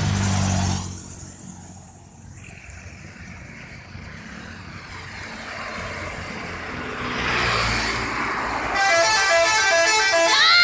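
Road noise from a passing vehicle swells. About nine seconds in, a bus's telolet horn, a multi-tone musical air horn, starts playing a quick tune of notes stepping up and down. The tune turns into wavering glides near the end.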